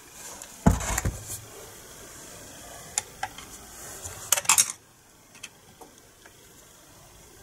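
Metal tool work on a chainsaw while setting the chain tension: a knock under a second in, then a few short metallic clicks and clinks around three and four and a half seconds in.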